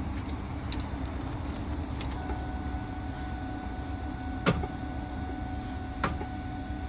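A small electric motor starts whining about two seconds in and runs steadily, with sharp clicks about four and a half and six seconds in, over a steady low rumble.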